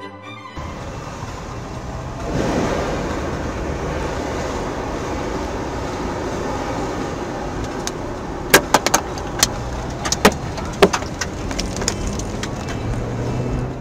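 Steady in-cab rush of road, wind and rain noise from a car driving on a wet road in a storm. Between about 8 and 11 seconds there are half a dozen sharp knocks as objects strike the car.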